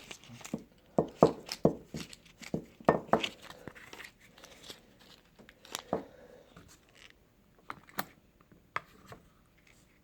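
Hands handling the parts of a car seat belt assembly: irregular clicks, knocks and rustles, busiest in the first few seconds and sparser after.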